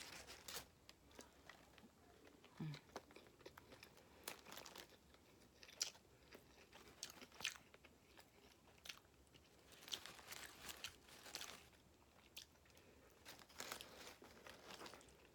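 Faint eating sounds of a Subway sandwich: bites, crunching and chewing with scattered wet mouth clicks, and a short hum about two and a half seconds in.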